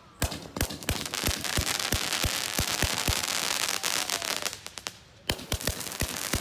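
Fireworks going off: a fast run of sharp bangs over dense crackling, with a brief lull near the end before the bangs start again.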